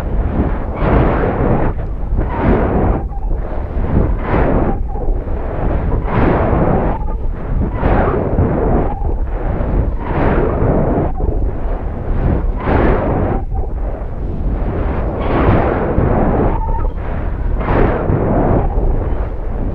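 Loud wind rushing and buffeting over the payload's microphone, surging in gusts about once a second, as the high-altitude balloon payload falls under its parachute after the balloon has burst.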